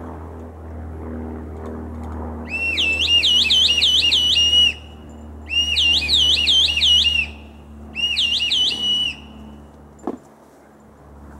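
A loud warbling whistle, its pitch swinging quickly up and down, sounded in three bursts of about two seconds each, a second or so apart. A single sharp knock or snap comes near the end.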